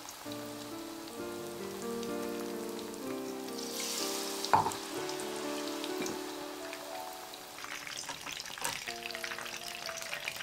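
Batter-coated sardine pieces deep-frying in oil at about 170 °C. A burst of sizzling comes about four seconds in as a piece goes into the oil, with one sharp click, and dense crackling bubbling follows near the end. Light background music plays throughout.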